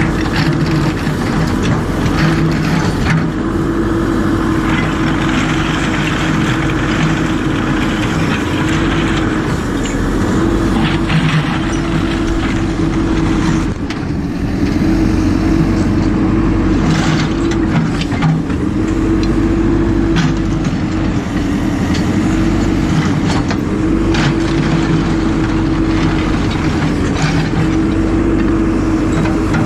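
JCB 4CX backhoe loader's diesel engine running under working load, its pitch sagging and recovering every few seconds as the hydraulics are worked, with occasional knocks and clatter from the work.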